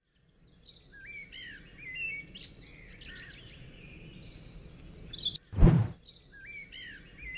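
Several birds chirping and calling in quick short sliding notes over a faint low background rumble. A little past halfway, a brief loud low sound cuts across them, and the chirping resumes after it.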